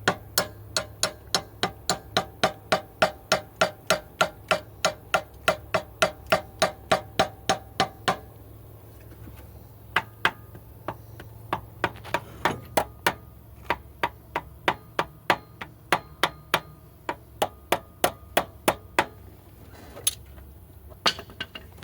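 Hammer blows knocking a bent engine part back into shape: a steady run of about three strikes a second with a faint ring, then slower, irregular taps after about eight seconds.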